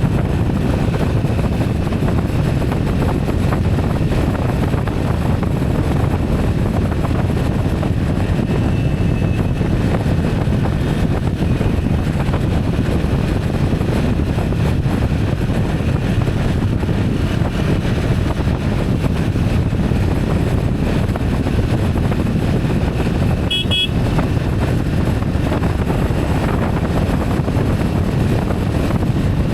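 Steady low rumble of wind and vehicle noise, with a short horn toot late on.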